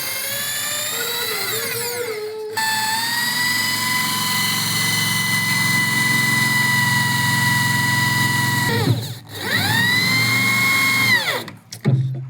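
A handheld electric power tool's motor running at speed with a steady high whine. The pitch shifts over the first couple of seconds, then holds. About nine seconds in it winds down, spins straight back up, and winds down again near the end.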